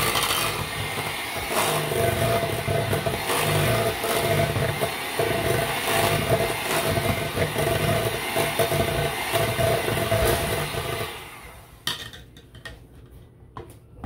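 Old electric hand mixer running steadily, its beaters whipping an egg into cookie batter in a stainless steel bowl; it is switched off about 11 seconds in, followed by a couple of sharp knocks.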